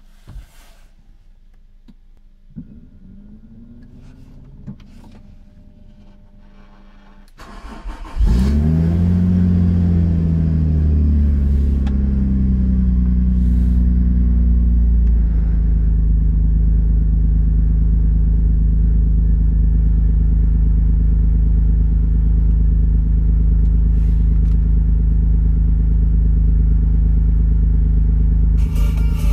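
Renault Laguna 3.0-litre V6 engine cold-starting: the starter cranks briefly and the engine catches about eight seconds in. It flares up, then its revs slowly sink over several seconds and it settles into a steady, slightly fast cold idle.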